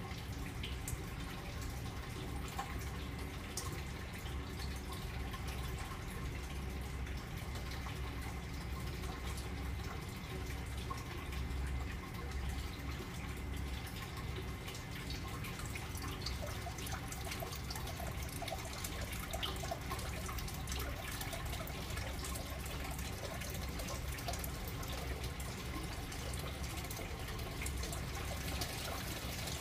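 Aquaponic bell siphon draining the plant grow bed: water runs down the PVC drain pipe and splashes into the aquarium below as a steady trickle full of small drips.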